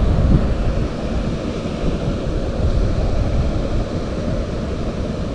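Wind buffeting the microphone, a steady low rumble with no other clear sound standing out.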